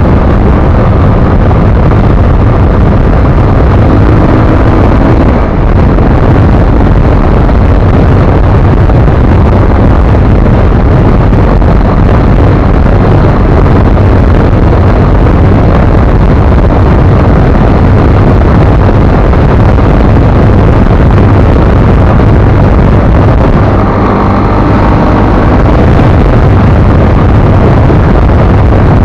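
ZiD 250 motorcycle running at speed, its engine buried under loud, steady wind buffeting on the microphone.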